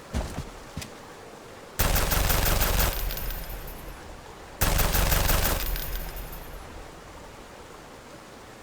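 Two bursts of rapid automatic gunfire, each about a second long, about three seconds apart, each trailing off in a fading echo. A few small clicks come before the first burst.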